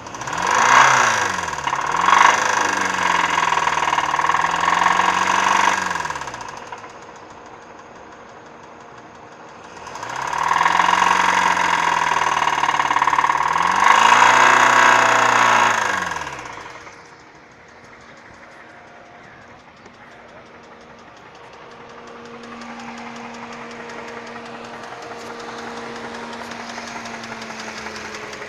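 2008 Hyundai Sonata engine with the hood open, revved up twice and held for about five seconds each time, dropping back to idle between and afterwards, with the clicking that the owner is asking about. The car has logged code P0011 (intake camshaft timing over-advanced), and someone has told the owner the engine is blown.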